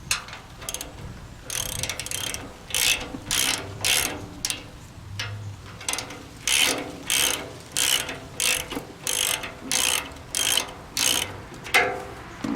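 Socket ratchet wrench clicking in repeated back-and-forth strokes, about two a second, backing out the hold-down bolts of a tractor's rear brake plate.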